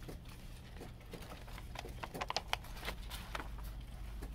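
Paper CD booklet and folded liner-note insert being handled, leafed through and unfolded: light irregular rustles and clicks, busiest in the middle, over a low steady hum.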